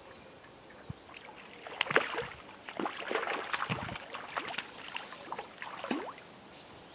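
A hooked fish splashing and thrashing at the water's surface: a run of irregular splashes and gurgles that starts about two seconds in and dies away near the end.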